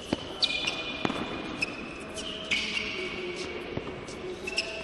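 Tennis play on an indoor court: several sharp knocks of a tennis ball being hit and bouncing, scattered irregularly, with short high squeaks of sneakers on the court surface.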